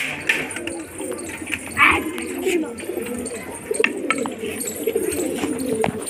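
A flock of domestic pigeons cooing, many overlapping low warbling coos, with scattered light clicks. There is a short, higher-pitched sound about two seconds in.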